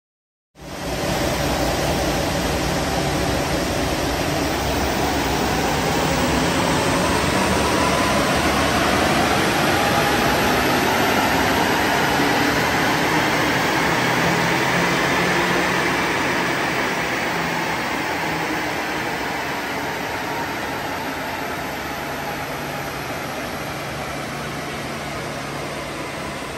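Mazda BT-50 diesel ute running on a chassis dynamometer during a power run, under the steady rush of a large cooling fan. The engine and roller sound rises in pitch and loudness over about the first ten seconds, then winds down and eases off toward the end.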